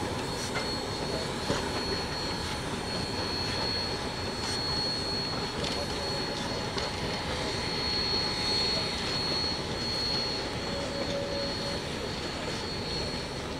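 Narrow-gauge steam locomotive Rio Grande Southern #20, a 4-6-0, rolling past slowly with its freight train: a steady rumble and hiss of the engine and cars moving along the track, with a thin high whine held throughout and a few faint clanks.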